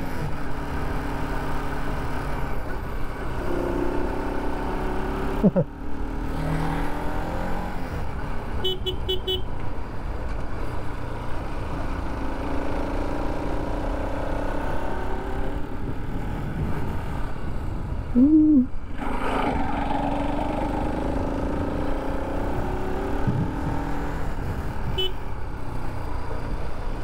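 Bajaj Pulsar RS200 single-cylinder engine running under way, its pitch rising and falling with throttle and gear changes on an uphill climb, with wind and road noise. A short run of horn beeps comes about nine seconds in, and a brief louder burst about eighteen seconds in.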